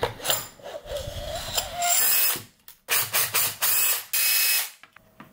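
Power drill-driver running in several short bursts of about half a second each, with a mechanical ratcheting sound.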